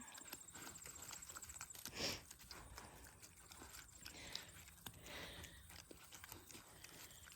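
Young pigs eating table scraps: faint scattered clicks and munching, with a short, louder noisy burst about two seconds in.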